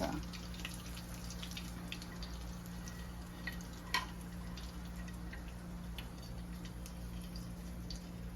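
Light drips and small ticks as garlic butter juice is poured over a cooked steak, over a steady low hum. There is one sharper click about four seconds in.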